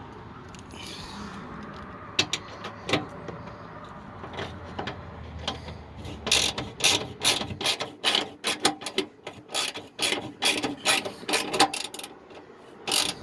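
Hand socket ratchet clicking as it runs down a fender bolt: a few scattered clicks, then from about six seconds in a quick, steady run of clicks, two or three a second, as the bolt is cranked in.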